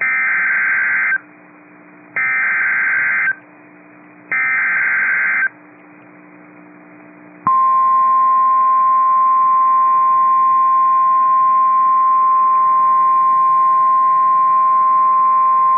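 NOAA Weather Radio Emergency Alert System tones: three bursts of about a second each of the SAME digital header, about a second apart. Then, after a short pause, the steady 1050 Hz warning alarm tone comes on about seven and a half seconds in and holds. Together they signal that a warning message, here a severe thunderstorm warning, is about to be read.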